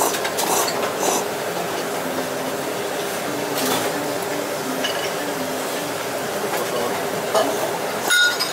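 A person slurping ramen noodles: a few quick slurps in the first second and another about four seconds in, over steady restaurant background noise. Near the end a ceramic soup spoon clinks once against the bowl with a brief ring.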